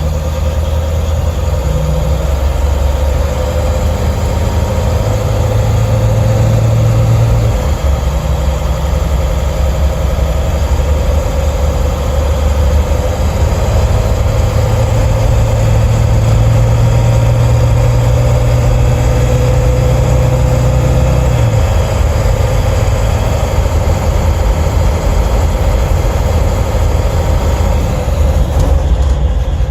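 Ford 7.3 Power Stroke turbo-diesel V8 running under way, heard close to the engine cover inside the cab. It makes a steady low drone that changes pitch abruptly about seven seconds in and again about twenty-one seconds in.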